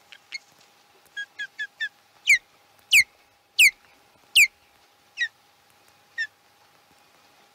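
Osprey calling: a few quick chirps, then four loud whistled calls, each falling in pitch, about two-thirds of a second apart, and two fainter calls near the end.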